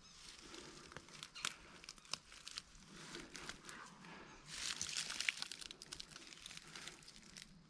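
Dry leaves and brush rustling and crunching close to the microphone as someone moves through them, with many sharp crackles and snaps. The crackling is loudest a little past the middle.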